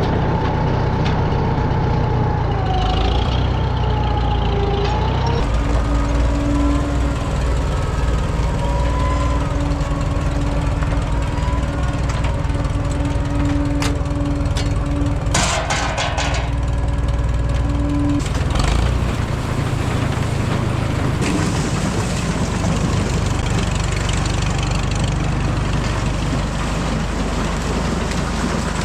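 Tractor engine running steadily under load, its tone shifting about five seconds in and again near twenty seconds.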